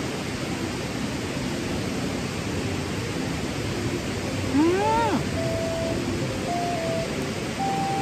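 Steady rush of a river flowing over a rocky bed. About halfway through, a short rising-then-falling hum comes from someone chewing, and then soft background music with single held notes begins.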